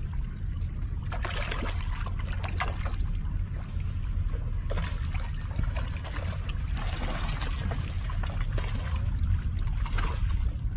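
Water splashing and trickling as a hooked trevally thrashes at the surface beside the rocks, in irregular bursts. A steady low wind rumble on the microphone runs underneath.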